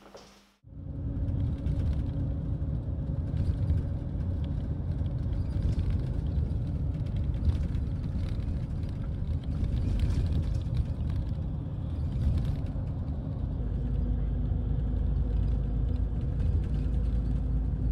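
Inside a moving bus: steady low rumble of the engine and tyres on the road, with a faint steady hum over it. It starts suddenly about half a second in.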